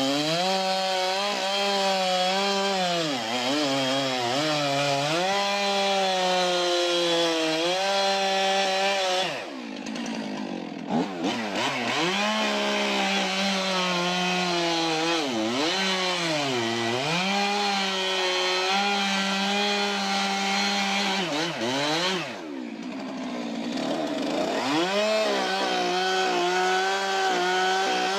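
Chainsaw cutting into a large trunk, its engine pitch sagging and recovering as the bar bites into the wood. Twice the saw drops off, about ten seconds in and again past twenty seconds, and then revs back up into the cut.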